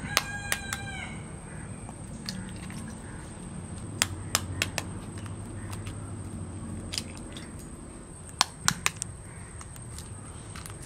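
A steel spoon tapping hen's eggs to crack their shells: sharp little clicks in small clusters, about four near the middle and three more near the end, with a brief ringing tone after the first taps at the start.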